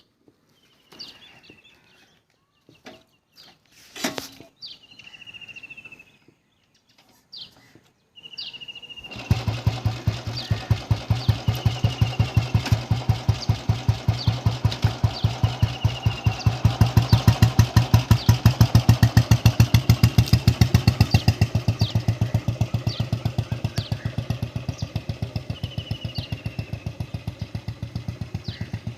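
1974 Royal Enfield Bullet's single-cylinder four-stroke engine starting about eight seconds in after a few clicks and knocks, then idling with its steady thumping 'dug-dug' beat. The beat swells a little midway, then eases back.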